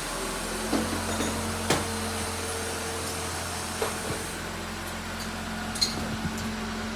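Jeep Wrangler JL's 3.6-litre Pentastar V6 idling steadily just after an oil change, with a few light clicks now and then.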